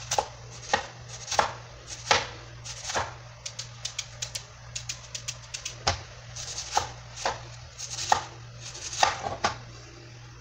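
Santoku knife chopping an onion on a plastic cutting board: a run of sharp, irregular knocks, coming quicker in the middle stretch.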